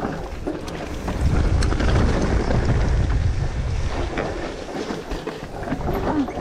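Wind buffeting the microphone of a downhill-riding mountain bike, strongest from about one to four seconds in, over tyres rolling on a rocky dirt trail and light clicks and rattles from the bike.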